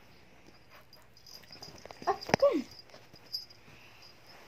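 A pet dog gives a few short whining yelps about two seconds in, the last one sliding down in pitch, while it plays.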